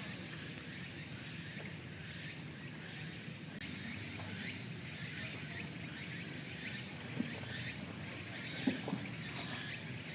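Outdoor ambience: a steady background noise with a few short, high bird chirps near the start and about three seconds in. Two or three sharp knocks come late on.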